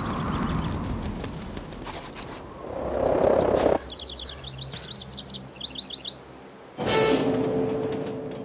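Sound design for an animation: small birds chirping in quick runs, and a gust of wind swelling and cutting off sharply about four seconds in. More chirps follow, then near the end a loud sustained tone starts suddenly and fades slowly.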